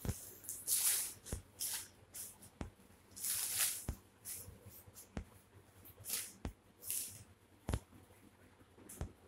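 Thin clear plastic bag crinkling and rustling in irregular bursts as a kitten pounces on it and bats it about, loudest a little after the middle. Short light ticks come about every second and a quarter between the rustles.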